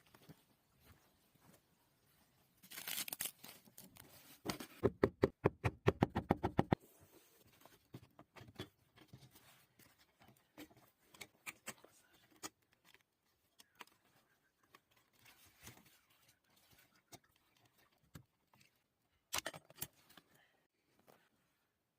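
Hand work on a car's fuel pump: scraping and rustling, a rapid run of even clicks lasting about two seconds, then scattered ticks and another short scrape near the end.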